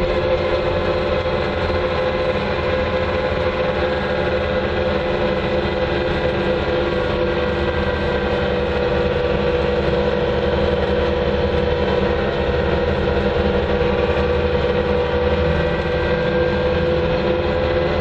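Bobcat 2410 loader driving along at road speed, heard from the operator's seat: its engine and drivetrain make a steady drone with a strong, even hum in it.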